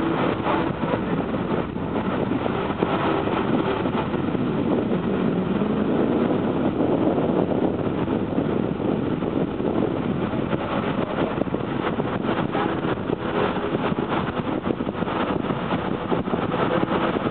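Steady engine rumble and rush of water from a large car ferry passing close by, with a faint hum in the rumble.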